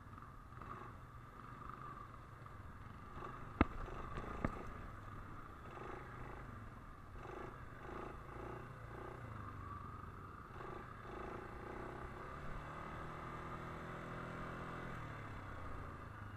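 ATV engine running steadily at riding speed on a dirt road, its note rising for a few seconds later on as the quad speeds up, then dropping back. Two sharp knocks a little under a second apart about a quarter of the way in.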